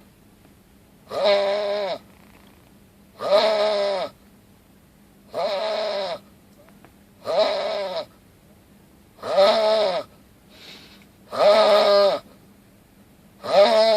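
Rhythmic snoring: seven high, pitched snores, each under a second long, one about every two seconds, with quiet breaths between.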